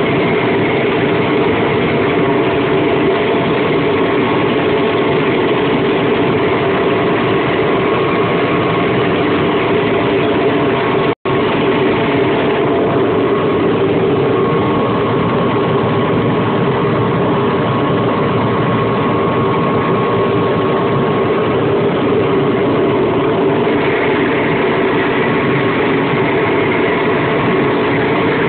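John Deere 9965 cotton picker running steadily while picking, its engine and machinery making a constant hum with faint steady whines above it. The sound cuts out sharply for an instant about eleven seconds in, then resumes unchanged.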